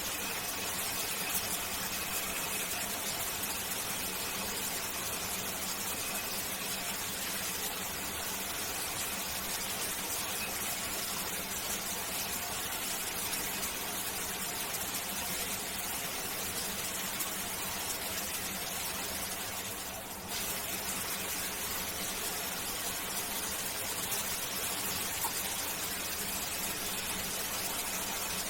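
Shower water running steadily, an even hiss of spray. It briefly drops and thins about twenty seconds in.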